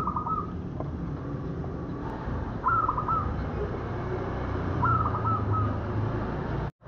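A local Indonesian zebra dove (perkutut) cooing: three short phrases of quick stuttering notes, about two seconds apart, over a low background rumble.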